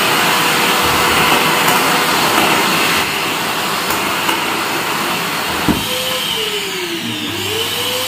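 INALSA Homeasy WD10 1200-watt wet and dry vacuum cleaner running at full suction, its loud airflow rushing with a steady motor whine while the hose picks up paper scraps from the floor. There is a click a little before six seconds in. After that the whine falls and rises in pitch twice as a plastic sheet catches over the hose mouth.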